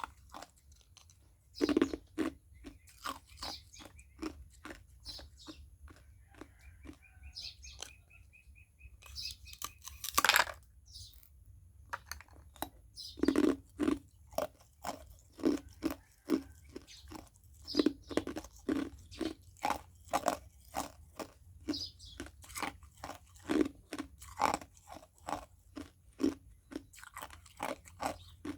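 A person biting and chewing ice: loud crunching bites every few seconds, with rapid smaller crunches as the ice is chewed between them.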